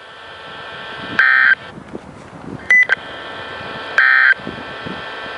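NOAA Weather Radio end-of-message SAME data bursts: three short, buzzy digital tone bursts about a second and a half apart, over a steady hiss of radio static.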